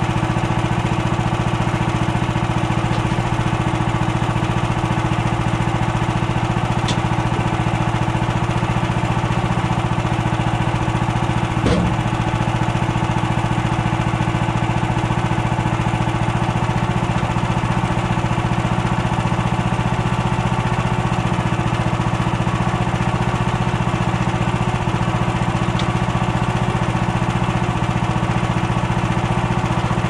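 Gas engine of a Woodland Mills HM130Max portable bandsaw mill idling steadily, with a single knock about twelve seconds in.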